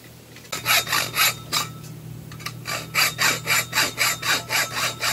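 Hacksaw cutting through a 2-inch pipe by hand. A few rasping strokes start about half a second in, then a short pause, then quick steady strokes at about four a second.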